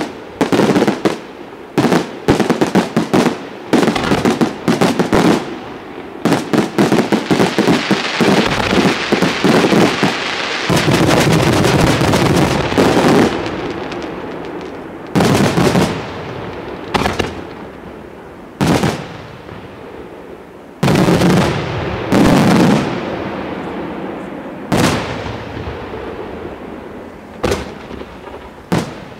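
Aerial fireworks shells bursting: a quick volley of sharp bangs, then a dense run of continuous crackling in the middle, then single loud bangs every second or two, each trailing off in a long echo.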